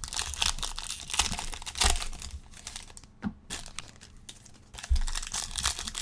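Crinkly rustling of a foil trading-card pack wrapper and cards being handled, with a short lull a little past halfway before the rustling resumes.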